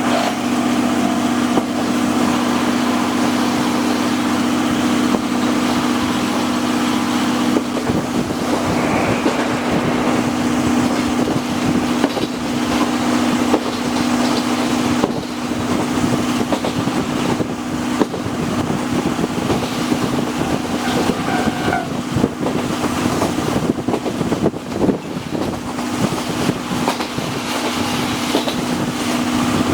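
Train running noise from inside a locomotive-hauled passenger coach: a steady low hum under a noisy rush, with irregular clacks and rattles from the wheels and the car. The hum fades from about a quarter of the way in and comes back near the end.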